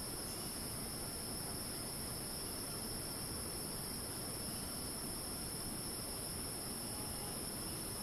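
Cicadas in tropical rainforest giving a continuous high-pitched screech with no breaks, in two steady pitches, one higher than the other. Wind rumbles on the microphone underneath.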